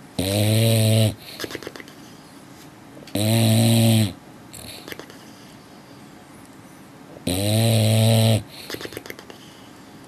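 Sleeping dog snoring loudly: three long, pitched snores of about a second each, roughly every four seconds, with softer rattling breaths between them.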